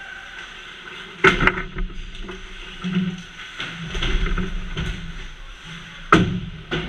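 Ice hockey play right at the goal: two sharp, loud knocks, about a second in and again near the end, with scraping and rink noise from skates and sticks on the ice between them.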